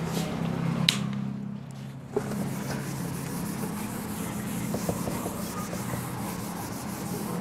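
Whiteboard being wiped clean with a hand-held duster: an even rubbing hiss that starts about two seconds in and goes on steadily, over a low hum.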